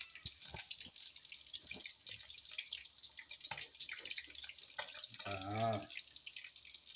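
Hot cooking oil crackling in a wok as a batch of chicken deep-fries: a dense, steady patter of tiny pops. A man's short voiced hum comes about five seconds in.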